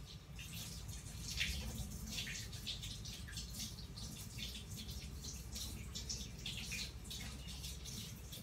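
Butter melting in a stainless-steel saucepan over medium heat, sizzling with many small irregular crackles and pops, over a low steady hum.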